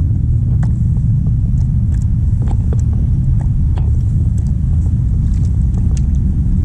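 Steady low wind rumble buffeting the camera microphone, with light, irregular clicks throughout.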